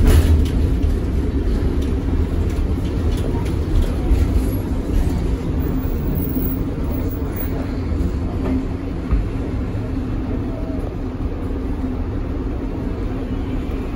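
Tatra KT4D articulated tram running along the track, heard from inside the car: a steady low rumble with a faint steady hum, easing slightly in loudness over the stretch.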